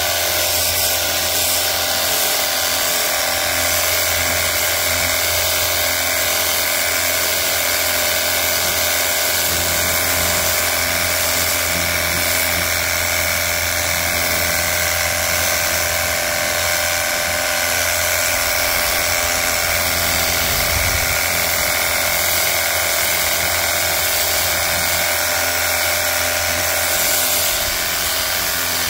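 Battery-powered cordless pressure washer running without a break: a steady whine from its electric motor and pump over an even, high hiss.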